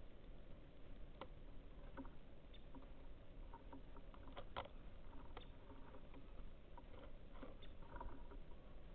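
Scattered light clicks and taps of birds pecking and shuffling at a seed feeder, the loudest about halfway through, over a steady low rumble.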